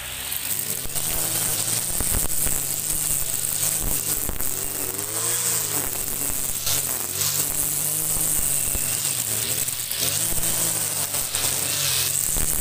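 Kawasaki TJ45 two-stroke brush cutter engine running at high throttle while its spinning head cuts overgrown grass. It comes up to speed right at the start, and its note wavers a little as the cutting load changes.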